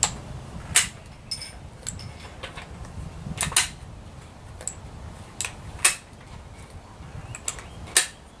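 Loaded .223 cartridges being pressed one at a time into an AR-15 magazine: a series of sharp, irregular metallic clicks, with brass clinking between them.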